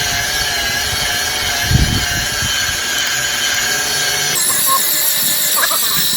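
Harbor Freight variable-speed electric polisher running with a steady motor whine and hiss. The sound turns brighter and higher about four seconds in.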